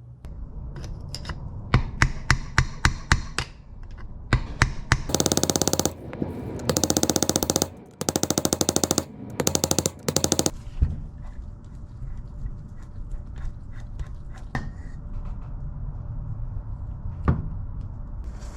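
Metal tool work on a motorcycle final drive: a string of sharp knocks, then four bursts of about a second each of rapid-fire rattling impacts.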